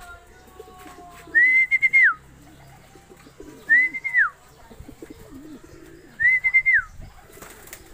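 Three long whistles a couple of seconds apart, each rising, holding with a slight warble and dropping away: a pigeon keeper whistling to call racing pigeons down to the loft. Soft, low pigeon cooing can be heard between the whistles.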